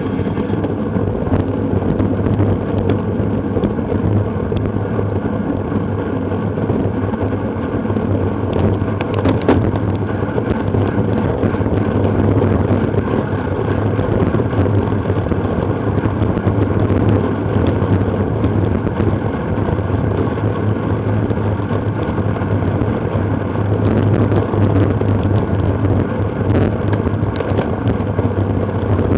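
Steady rush of wind buffeting the action camera's microphone while riding at race speed on a bicycle, with road noise beneath and a few faint knocks.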